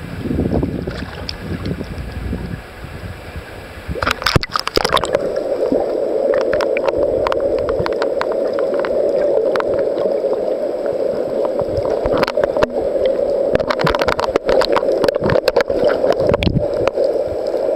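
Seawater slapping and sloshing against a waterproof camera at the surface, then a splash as it plunges under about four seconds in. Underwater there is a steady, muffled water sound with scattered sharp crackling clicks.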